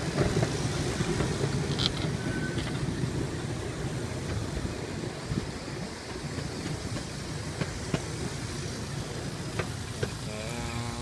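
Miniature ride-on train rolling along its narrow track: a steady rumble of the cars, with a few sharp clicks. Near the end comes a short, steady pitched call.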